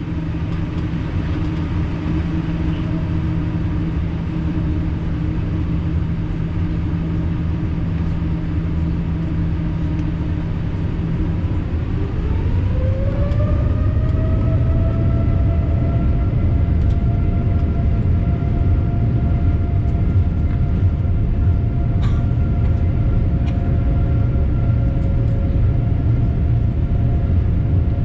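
Boeing 787-9 Dreamliner's jet engines with a steady low rumble. About twelve seconds in, a whine rises in pitch and then holds steady while the rumble grows louder: the engines spooling up to take-off thrust.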